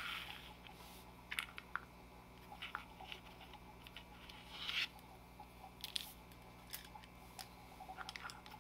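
Plastic action figures and their small accessories handled and set down on a cutting mat: scattered light clicks and taps with a few brief rustles, the longest rustle a little over halfway through.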